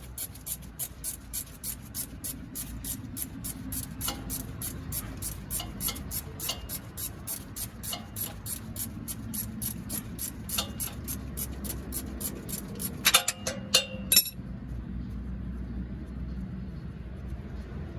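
Background hip-hop music with a quick, steady hi-hat beat; about 13 seconds in, a few loud, ringing metal clinks, after which the music stops and only a low rumble is left.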